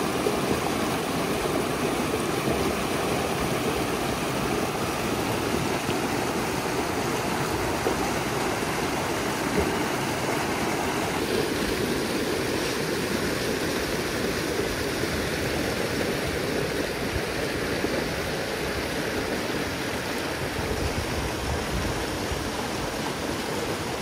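Steady rushing noise that shifts in tone about halfway through and grows deeper near the end.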